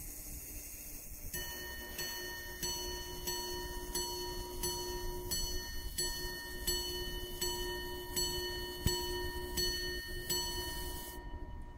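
Minute-repeater gold pocket watch chiming: its gongs struck at an even pace of about one and a half strikes a second, each stroke leaving a ringing tone. The strikes begin about a second in and stop suddenly near the end.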